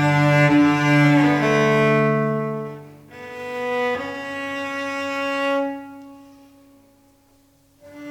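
Bowed strings, cello and violin over double bass, playing long held notes that change chord every second or two. The low bass notes drop out about two seconds in, and the music thins and fades to a single faint held note before a new low note comes in at the very end.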